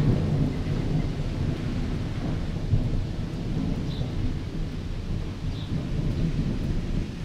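Thunder from a passing thunderstorm rolling as a continuous, uneven low rumble, with two faint short chirps about four and five and a half seconds in.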